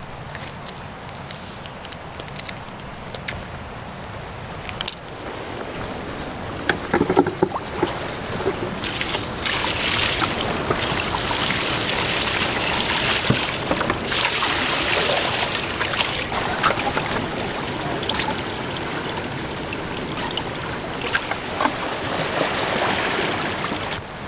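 Knife scraping scales off a small fish in short scratchy strokes. Then, from about nine seconds in, water is poured from a plastic bucket over the fish and rock, splashing and trickling as the scales are rinsed off.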